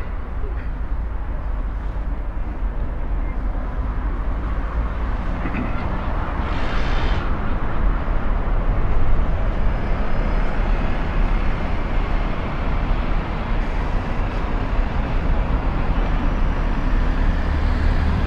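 Busy city-street traffic: buses and cars passing with a steady low engine rumble, and a brief hiss about a third of the way through.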